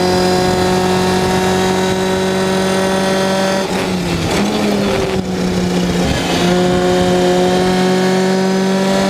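Onboard sound of a Lotus Seven-style clubman race car's engine at racing speed, held at high revs. The revs dip and wobble briefly in the middle as the driver comes off the throttle, then climb slowly again under full acceleration.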